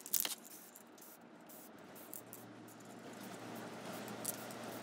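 Aerosol spray paint can hissing steadily as a coat of dark green paint is sprayed onto a rifle, building up about two seconds in, after a few clicks at the start.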